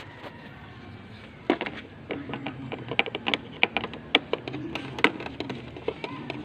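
Irregular sharp clicks and taps of a screwdriver working the screws of a scooter's plastic headlight cover, starting about a second and a half in.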